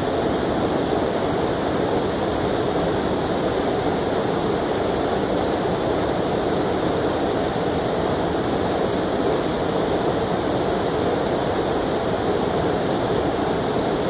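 Shallow creek water rushing steadily over a rocky riffle, an even hiss with no breaks.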